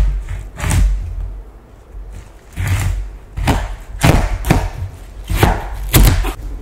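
A large kitchen knife cutting through a whole watermelon's rind on a wooden cutting board: about eight crisp, crunching cuts, each with a dull thud.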